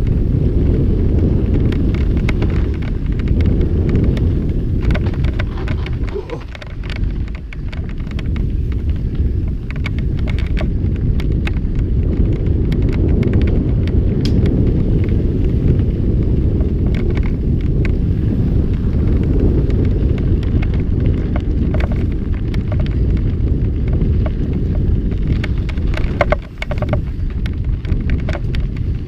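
Wind rumbling on the microphone of a mountain bike rider's camera, with many short clicks and rattles from the bike over rough trail.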